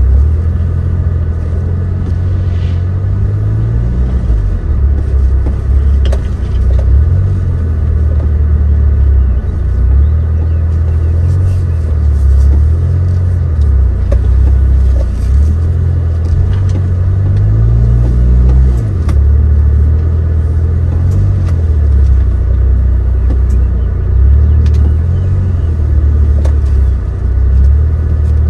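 Suzuki Jimny JB23's 660 cc turbocharged three-cylinder engine driving off-road. Its revs rise and fall every few seconds, with scattered sharp knocks and clicks.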